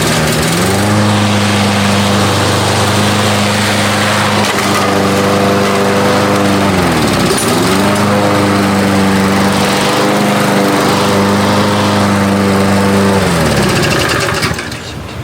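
Lawn mower engine revving up and running steadily; its pitch dips sharply and recovers about seven seconds in, then it winds down and stops near the end.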